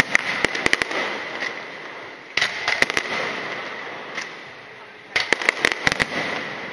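Aerial fireworks shells bursting overhead in three clusters of sharp bangs and crackles: one near the start, one about two and a half seconds in and one about five seconds in. Each cluster is followed by a fading echo.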